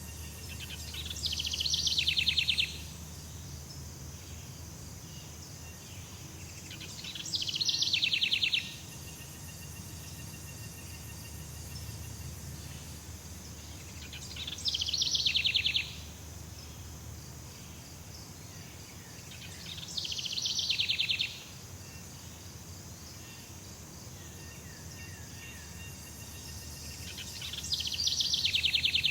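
Tropical jungle ambience: a steady high drone of insects. About every six to seven seconds a loud, rapid pulsing call comes from a bird or insect; it swells for about a second and a half and then cuts off, five times in all.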